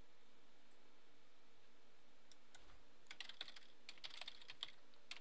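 Typing on a computer keyboard: a quick, irregular run of key clicks that starts about three seconds in, over a faint steady hiss.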